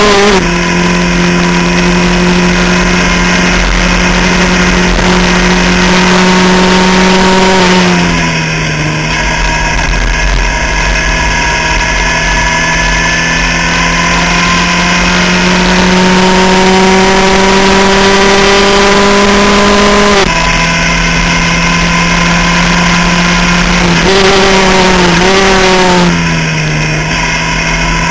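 A Skip Barber formula race car's engine heard on board at racing speed, running at high revs. Its pitch drops sharply several times at gear changes and lifts: near the start, about a third of the way in, again about two-thirds in, and in a few quick dips near the end. Between the drops it climbs slowly as the car accelerates.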